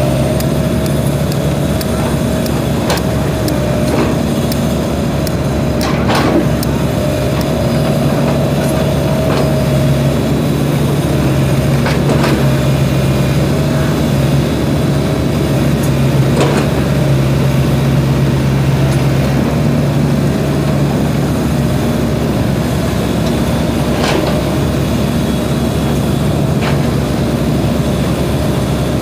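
SANY mini excavator's diesel engine running steadily under hydraulic load as it digs and swings, with a few sharp knocks.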